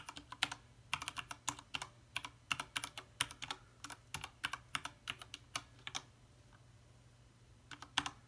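Typing on an iQunix A80 mechanical keyboard with Cherry MX switches: a quick run of key clicks for about six seconds, a short pause, then a few more keystrokes near the end.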